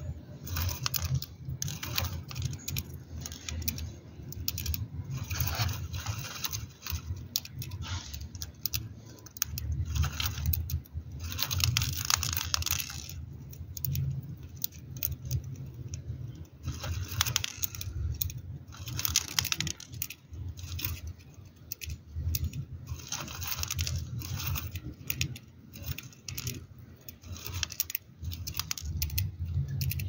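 Budgerigar pecking at a millet spray, cracking and husking the seeds with its beak: a run of quick, irregular dry clicks and small rustles, over a low steady hum.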